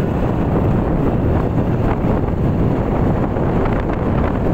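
Heavy wind noise buffeting the microphone while riding along a road: a loud, steady rush.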